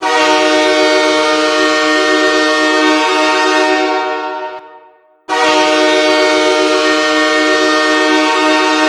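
Nathan K3LA three-chime locomotive air horn, played as a recorded goal horn to signal a goal, sounding a steady chord in two long blasts. The first fades away about four to five seconds in, and the second starts after a brief gap.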